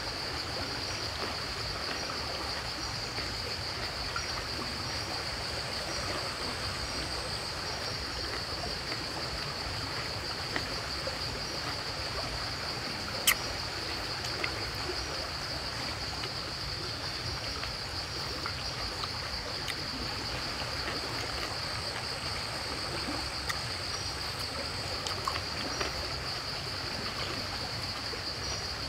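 Outdoor ambience: a steady high-pitched insect drone over an even rushing hiss, with one sharp click about halfway through.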